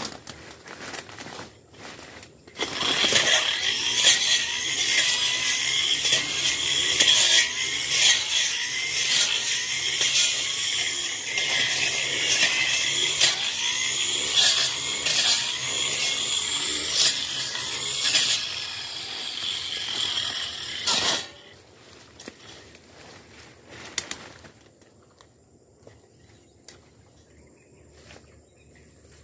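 Tanzu brush cutter running hard through dense scrub with a high whine and many crackling, snapping hits, starting about two and a half seconds in and stopping about twenty-one seconds in. After it stops there are faint scattered snaps and rustles.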